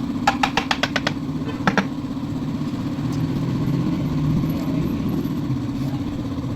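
Yamaha Aerox 155 scooter's single-cylinder engine idling steadily, with a quick run of sharp clicks in the first second and two more soon after.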